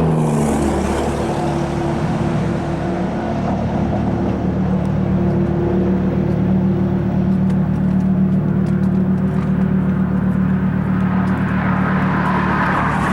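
Car driving at a steady speed: a continuous engine hum with road noise.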